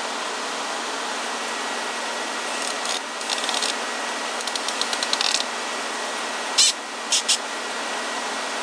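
A small power tool running steadily with a faint whine, with several short bursts of scraping as it works the catapult's clear plastic bracket and wooden arm, the sharpest burst about six and a half seconds in.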